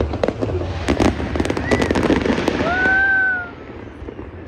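Aerial fireworks bursting and crackling in quick succession, with a dense rumble of overlapping bangs and crowd voices. The volley thins out about three and a half seconds in.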